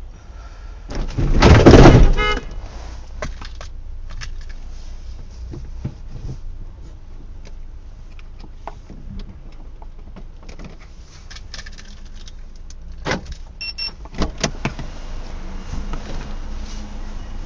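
A car collides with the dashcam car about a second in: a loud crash lasting about a second. Then the low hum of the stopped car. Near the end come several sharp clicks and a brief beep.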